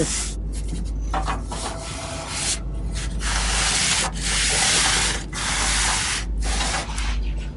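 A gloved hand rubbing back and forth along the rusty steel wheel-well lip of a car fender: about six long rubbing strokes, each broken off by a short pause.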